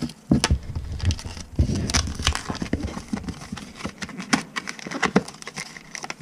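A Pokémon booster pack's cardboard-and-plastic blister packaging being handled and pried apart by hand: irregular crackling and crinkling with many sharp clicks.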